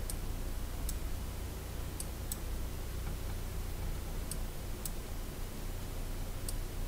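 Faint computer mouse clicks, about seven spread over several seconds, a couple of them in quick pairs, over a steady low hum.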